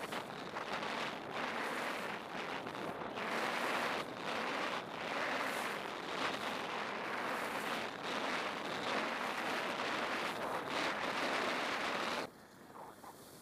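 Skis sliding and scraping over groomed snow on a downhill run, mixed with wind rushing over the camera microphone. The hiss swells and eases with the turns, then drops away sharply near the end.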